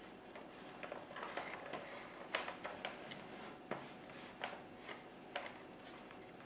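Hands handling a model aeroplane wing, fitting a servo wire and its small cover: irregular light clicks and taps with some rustling, the sharpest click about two seconds in.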